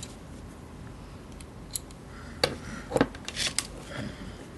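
Several sharp metallic clicks from the hammer mechanism of a Tanfoglio Witness 1911 CO2 air pistol as it is worked by hand, starting about halfway in.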